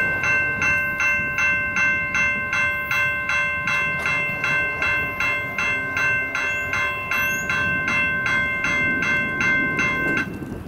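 Railroad crossing warning bell ringing steadily, about two and a half strokes a second, over a low rumble. The bell cuts off suddenly about ten seconds in, as the crossing gates finish rising and the signal shuts off.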